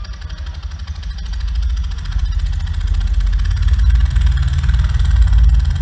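Beatboxer making a deep buzzing bass growl into a microphone through the hall's sound system. It swells louder over the first few seconds, then holds.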